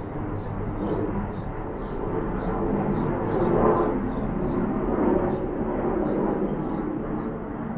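Outdoor ambience: a small bird chirping in short repeated notes, about two a second, over a low rumble that swells in the middle and eases off near the end.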